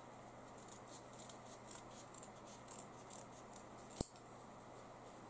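Scissors snipping through folded fabric and a paper pattern in small, faint cuts, with a single sharp click about four seconds in.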